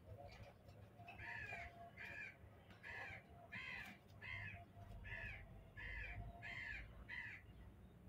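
Indian ringneck parakeet calling: a run of about nine repeated calls, each just under a second apart, starting about a second in.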